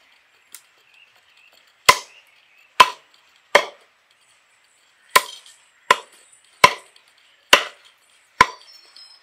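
Heavy cleaver chopping raw chicken on a wooden log chopping block: eight sharp chops, three in a row, a short pause, then five more, roughly one every three-quarters of a second.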